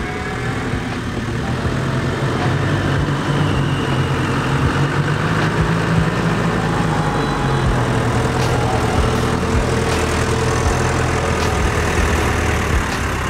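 Off-road 4x4's engine running steadily at low revs as it crawls over a rocky trail, with a few sharp clicks over it.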